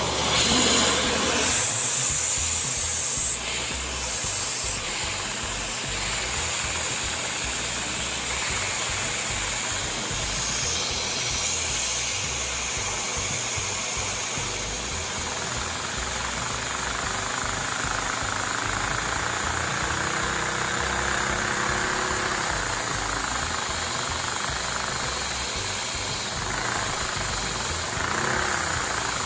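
LEGO inline four-cylinder vacuum engine running steadily on vacuum suction. A constant rush of air sounds over a fast clatter of the plastic pistons and crankshaft.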